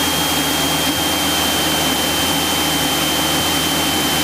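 Steady cabin noise of a Cessna 172SP in flight: the four-cylinder Lycoming engine and propeller drone under a rush of air, with a thin steady high-pitched tone over it.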